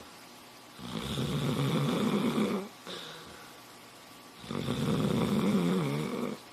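Sleeping dog snoring: two long, loud snores, each nearly two seconds, about three and a half seconds apart, with quiet breathing between.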